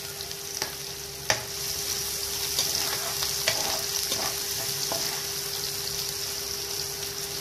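Chopped onion sizzling steadily in hot oil in a nonstick frying pan, being stirred with a steel ladle. A sharp clink of the ladle against the pan comes a little over a second in, followed by a few lighter taps and scrapes as the sizzle grows a bit louder.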